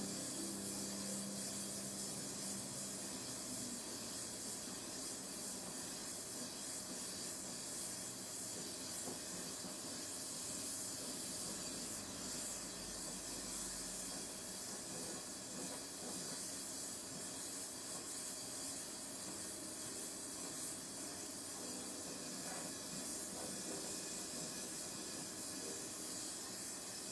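Gas torch flame hissing steadily as the seat lug of a steel bicycle frame is welded.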